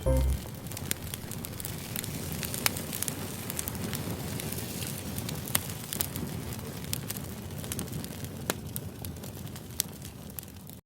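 Wood fire crackling: a steady hiss with many scattered sharp pops.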